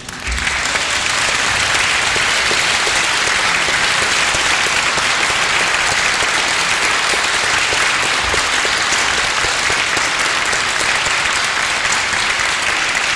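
Audience applauding, swelling within the first second and then holding steady, dense clapping.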